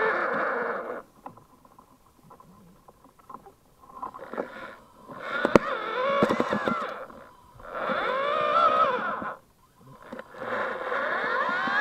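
Small electric drive motors of a tunnel robot whining in four separate bursts, the pitch rising and falling as they speed up and slow down. In the quieter gap after the first second there are light scrapes and clicks.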